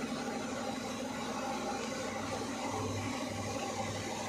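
Steady workshop background noise: an even low hiss with a faint hum and no distinct event.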